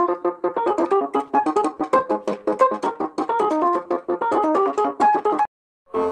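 Samsung Galaxy ringtone playing: a fast melody of short, quickly repeated notes. It stops about five and a half seconds in, and after a brief silence another ringtone begins just before the end.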